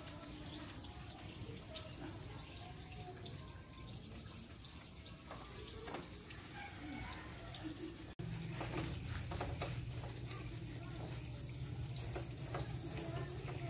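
Water running steadily from a tap while a motorcycle is washed by hand. After a sudden cut about eight seconds in, it gets louder and a low steady hum joins it.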